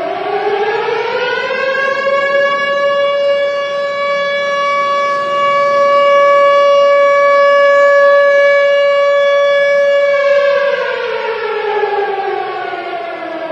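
Civil defence siren sounding the military alarm, the warning of attack. One long wail: the pitch rises over about two seconds, holds steady, then falls away over the last few seconds.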